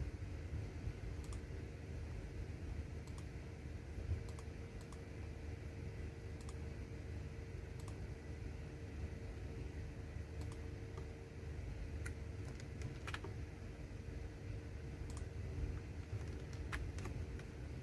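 Computer keyboard keys pressed sparsely: single irregular clicks, often a second or more apart, over a steady low hum.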